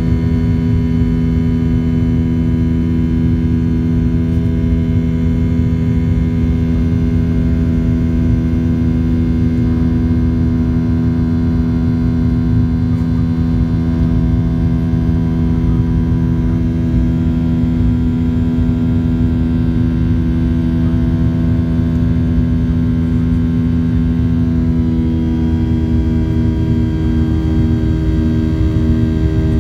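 Cabin noise of a Boeing 737-800 climbing after takeoff: the steady drone of its CFM56 turbofan engines, a rumble with a stack of steady humming tones over it. A few of the tones shift slightly near the end.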